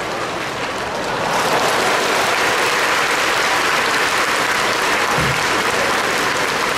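Baseball stadium crowd applauding, swelling about a second in and then holding steady.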